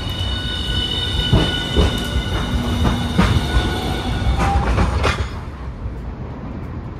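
A low-floor articulated tram passing close by: a steady high whine over a low running rumble, with several sharp clacks as its wheels cross rail joints. The whine stops about five seconds in and the sound fades as the tram moves away.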